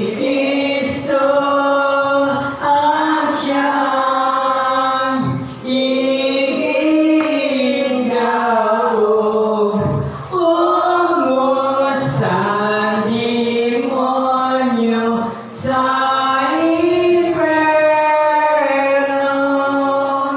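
A group of voices singing a gozos, a Filipino devotional hymn in praise of a saint, together in long held phrases with short pauses between lines every few seconds.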